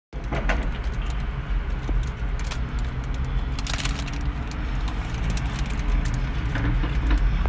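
Steady low rumble of a car running, heard from inside the cabin, with repeated crinkles and crackles of a paper food wrapper being handled.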